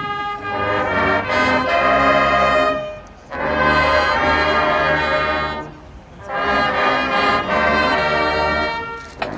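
Marching band's brass section, sousaphones included, playing three long, loud chords, each held about two and a half seconds and cut off before the next, after a softer held chord at the start.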